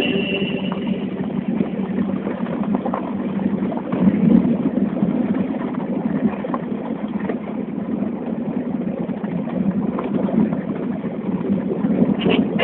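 A vehicle's engine running steadily, with road noise.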